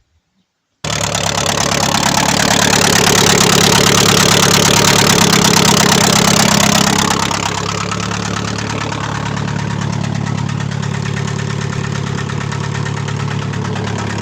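Chevrolet Aveo petrol engine coming on abruptly about a second in and running at a raised speed, then settling to a lower idle after about seven seconds, with a knock in it. The engine is stuck knocking with its oil at zero.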